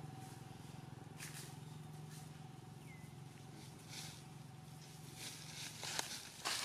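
Dry leaf litter rustling and crackling in short bursts, loudest and most frequent near the end, over a steady low hum.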